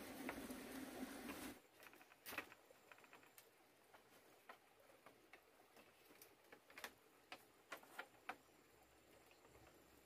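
Sparse light clicks and knocks of green bamboo poles being handled and set into a lashed bamboo wall, at uneven spacing, over a very quiet background. A soft rustling noise in the first second and a half stops abruptly.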